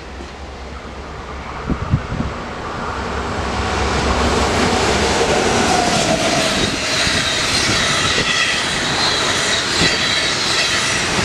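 Locomotive-hauled passenger train passing at speed: it comes on and grows louder over the first few seconds, with a couple of knocks about two seconds in, then a steady rush of wheels on rail as the coaches go by, with high whining tones over it.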